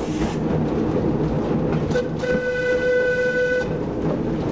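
Horn of a Sóller electric tram giving a short toot and then a held note of about a second and a half, over the steady rumble and clatter of the tram running along its track.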